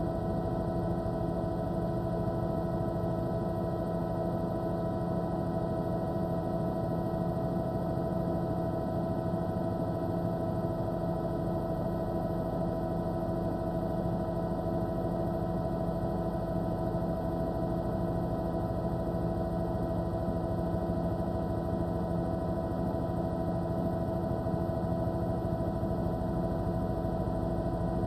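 Steady helicopter drone of engine and rotor, a hum made of several held tones that does not change in level.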